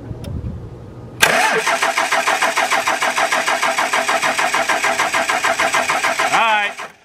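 Starter cranking a 24-valve 5.9 Cummins diesel, a fast even chugging, for about five seconds without the engine firing. It starts about a second in and cuts off near the end. It is a crank-no-start with no fuel reaching the injectors, which the owner puts down to a dead VP44 injection pump.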